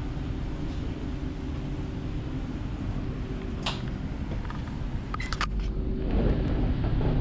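ÖBB Cityjet (Siemens Desiro) electric train running: a steady low rumble with a faint steady hum. A click sounds a little past halfway and a quick run of clicks follows about a second and a half later, and the rumble grows louder near the end.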